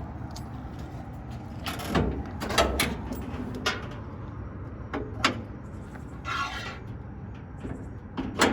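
Metal clunks and clicks from the heavy hood of a 1969 International Scout 800A being unlatched and lifted open: several separate knocks, with a short scrape about two-thirds of the way through.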